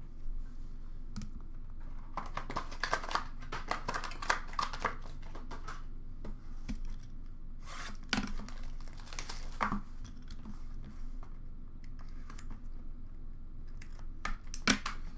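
Trading cards in plastic holders and sleeves being handled and filed into a storage bin: two spells of light plastic clicking and rustling, then a few sharp clicks near the end.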